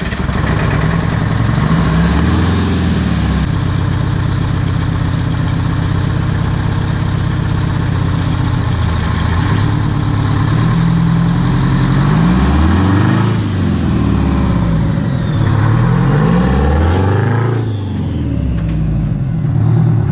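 Detroit Diesel 8V92 two-stroke V8 diesel engine of a 1985 Peterbilt dump truck running, held steady at first and then revved up and back down several times in the second half.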